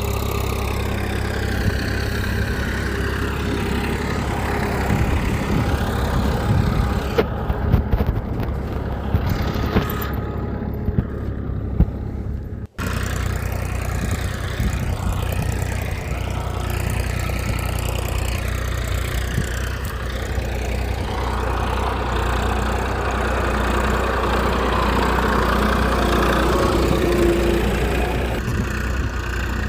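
A small motor running steadily, with a brief break a little before halfway.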